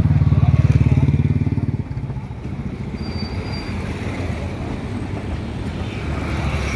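Passenger coaches rolling slowly past on the track with a steady low rumble. For about the first two seconds a nearby engine runs loudly with a fast, even throb, then stops abruptly.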